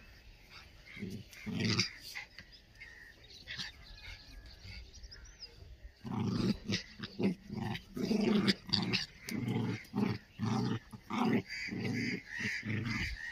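Two Indian Spitz dogs play-fighting and growling: a couple of short growls about a second in, then from about halfway a rapid run of short growls and snarls.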